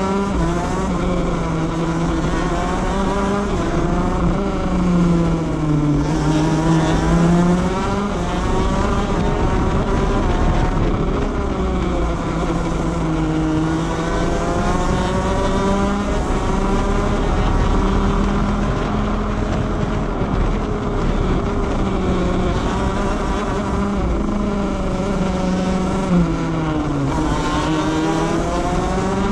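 125cc two-stroke shifter kart engine at racing speed, close-up from onboard the kart, its pitch rising and falling again and again as it accelerates and brakes through the corners, over a low wind and track rumble.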